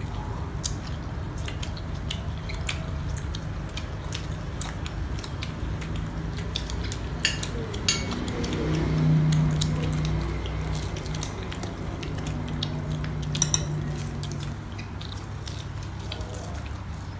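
Forks and spoons clinking against plates and bowls in many short, scattered taps over a steady low hum. A louder low drone swells in around the middle and fades out a few seconds later.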